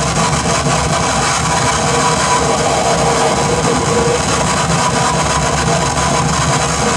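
Live harsh noise music from effects pedals and electronics played through an amplifier: a loud, steady, dense mass of hiss and rumble with a few faint held tones, unbroken throughout.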